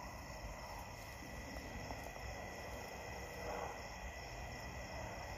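Night insect chorus of crickets trilling steadily, with faint rustling of dry grass being handled, swelling briefly about three and a half seconds in.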